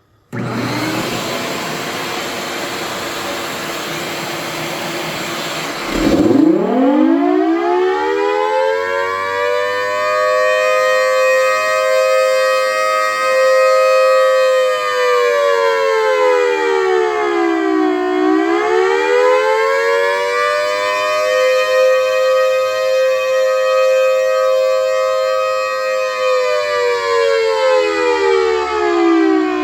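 A 3D-printed miniature Thunderbolt-style siren running at high RPM. A steady rushing hiss lasts about six seconds. Then a tone sweeps sharply up into a loud, steady wail, which dips in pitch and climbs back twice.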